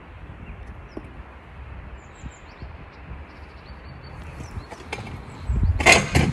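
Steady outdoor background noise with a few faint bird chirps, then a loud burst of rustling and rumble about five and a half seconds in, from the phone being moved around.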